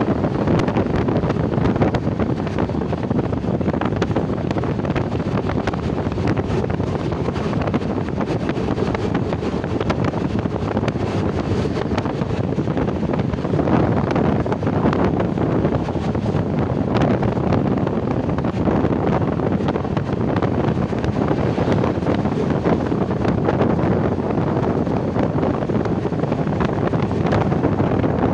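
Steady rush of wind buffeting the microphone, a constant low rumble with no clear rhythm or tone.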